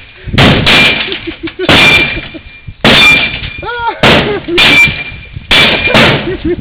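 Heavy blows landing one after another on a clothes dryer's sheet-metal cabinet, about eight of them roughly a second apart, each with a short metallic ring. A brief cry is heard between blows near the middle.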